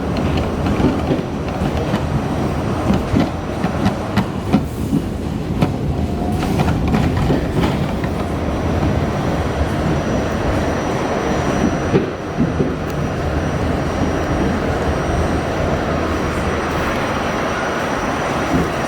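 An R68A subway car running along the track: a steady rumble of wheels on rail, with irregular clacks and knocks as the wheels pass over rail joints.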